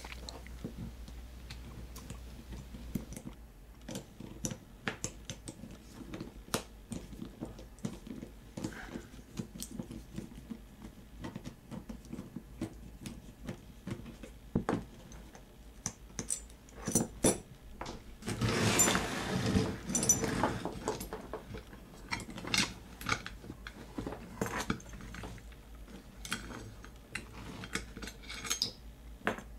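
Scattered clinks and taps of small steel hardware (a Bowflex cable hook, its bolt and bracket) being handled and unbolted with a nut driver, with a longer stretch of rattling and scraping about two-thirds of the way through.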